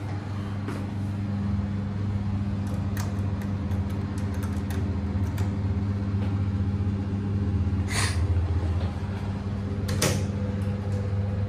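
Schindler elevator car in motion: a steady low hum inside the car, with a few short sharp clicks.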